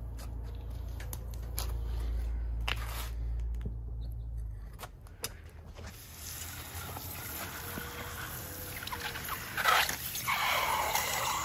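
A low steady hum with a few clicks, then from about six seconds in a hot copper ingot hissing and sizzling as it is pressed down into a block of ice. The hiss grows loudest near the end.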